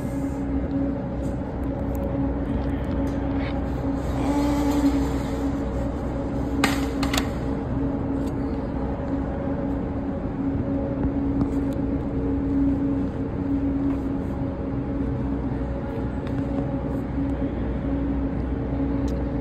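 A steady mechanical hum with a constant low tone and a few fainter higher tones, and a couple of brief clicks about seven seconds in.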